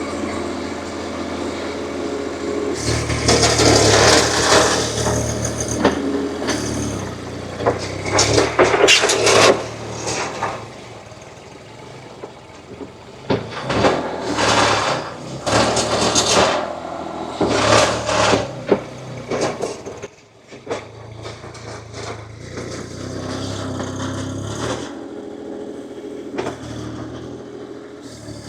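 Small wheeled skid loader's Kubota D1105 three-cylinder diesel engine working, rising in loud surges every few seconds as the machine takes load, then settling to a steadier run near the end.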